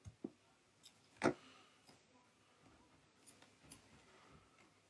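Faint, scattered clicks and taps from fingers handling an opened iPad 2's frame and internals, about half a dozen, the loudest a little over a second in.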